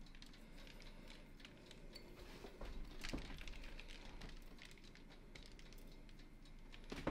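Faint, scattered light ticks and patter of sesame seeds sprinkled by hand onto pastry on a baking tray, with a few slightly louder clicks a few seconds in and again near the end.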